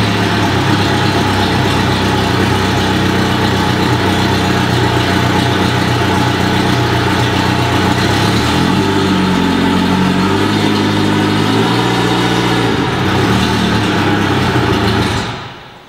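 Suzuki DF140 four-stroke outboard idling steadily right after starting on the first turn of the key, running well. It is shut off near the end and dies away.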